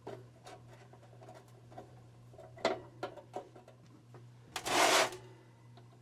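Light clicks and taps of screws and the heater's metal parts being handled while the screws go back in, with a louder rattling scrape lasting about half a second a little before the end. A steady low hum runs underneath.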